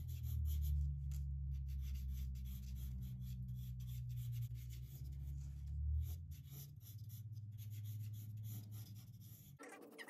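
Graphite pencil sketching on paper, a dense run of quick scratchy strokes. A low steady hum runs under it and cuts off near the end.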